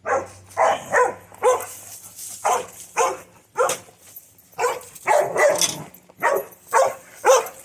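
A dog barking repeatedly, about a dozen barks in quick succession with a short gap about four seconds in.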